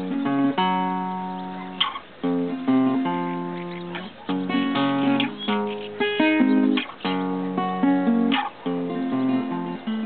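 Classical guitar played fingerstyle: plucked chords and melody notes, each ringing out and fading before the next is struck.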